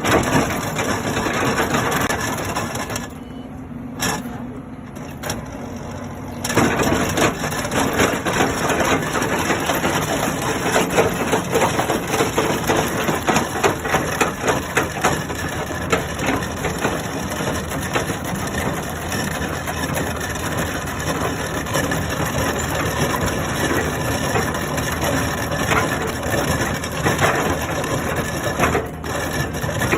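Excavator-mounted hydraulic axial drum cutter grinding into rock, a dense crackling crunch of picks breaking stone. About three seconds in the cutting eases off for a few seconds, leaving a steady hum, then resumes.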